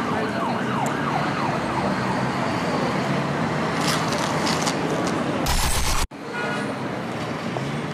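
Busy city street noise with traffic. About five and a half seconds in, a loud burst of static-like hiss covers everything, then cuts off abruptly into a moment of silence before the street noise comes back.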